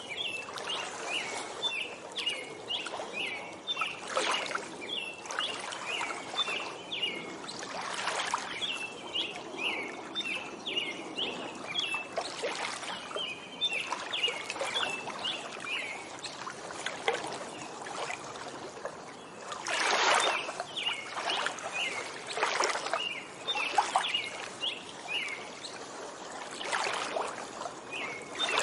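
Small waves lapping at a lakeshore, with soft splashing swells every few seconds, the largest about two-thirds of the way through. Over them a songbird chirps in quick runs of short high notes.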